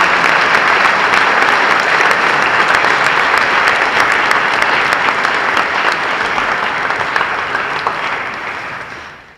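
Large seated audience applauding steadily, a dense patter of many hands clapping, fading away near the end.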